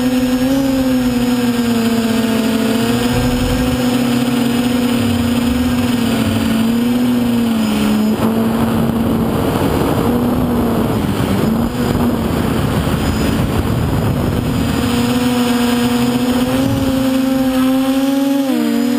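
Motor and propeller of a radio-controlled FPV model aircraft, heard from its onboard camera: a steady drone whose pitch wavers slightly with throttle. About eight seconds in, it fades under a rush of wind for several seconds, then comes back strong.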